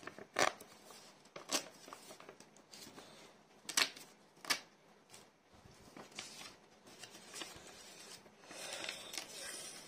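Paper envelope being torn open and handled: several short, sharp rips and crackles, then a longer rustle near the end.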